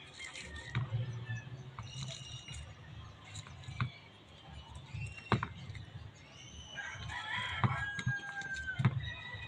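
Sharp knocks and rattles of tomatoes, onions and garlic bulbs being handled in a plastic basket, several of them loud. Bird calls sound in the background throughout, with a long held call near the end that drops in pitch as it stops.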